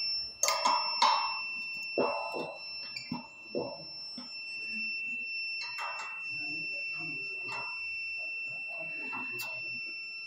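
Short metallic clinks and knocks of a spanner tightening the bolts on a satellite dish's mount, over a steady high-pitched electronic beep tone.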